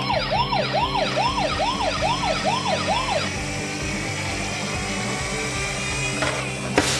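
Toy ambulance's electronic siren sounding a fast up-and-down wail, about two to three sweeps a second, which stops about three seconds in; a sharp click comes near the end.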